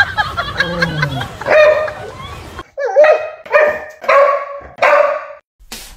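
English Springer Spaniel barking four times in quick succession, short high barks about half a second apart.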